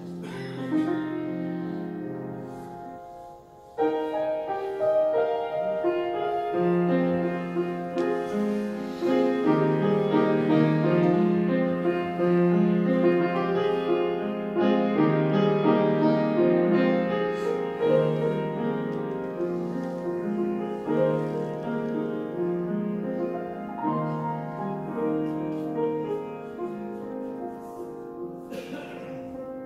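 Piano music played live: a slow piece of held chords and melody, soft at first and growing fuller about four seconds in.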